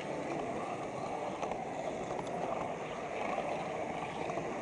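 Steady rolling rumble of a model railway flatcar carrying a camera along the track, heard up close, with a few faint clicks.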